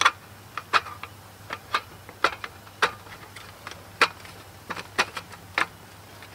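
About ten light, sharp knocks or taps at an uneven pace, one or two a second.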